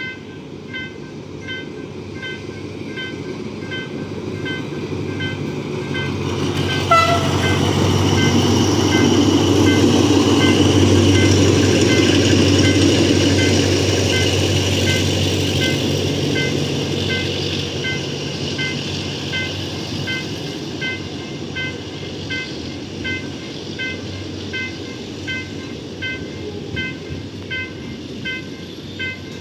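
A TCDD DE 24000-class diesel locomotive hauling a freight train passes close by. Its deep rumble and wheel noise build to a peak about ten seconds in, then fade. Throughout, a high ding repeats about three times every two seconds, with a sharp click near the loudest part.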